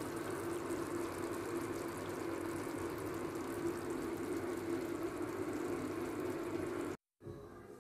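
Steady rushing noise with a low hum from the stovetop while the shakshuka cooks in its cast-iron skillet. It cuts off suddenly about seven seconds in.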